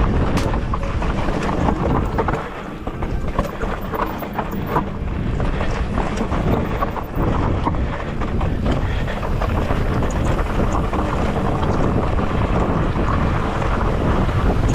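Wind buffeting the microphone of a camera on a moving mountain bike, over steady low rumbling tyre noise from the trail, with scattered short clicks and rattles.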